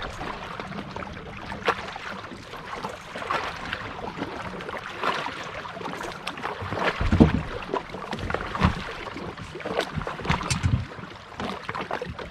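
Water sloshing and splashing on a bass boat, with scattered clicks and knocks and a few low thumps about seven and ten seconds in, as a freshly caught black bass is handled.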